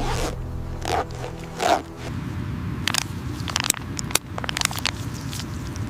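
Background music that stops about two seconds in, followed by a run of sharp scraping and crackling clicks over a low rumble.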